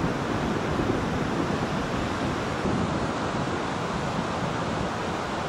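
Small sea waves washing onto a sandy beach: a steady hiss of surf.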